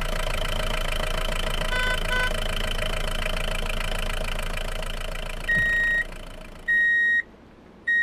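Vehicle engine running steadily at idle, fading out after about five seconds, followed by two short high electronic beeps about a second apart.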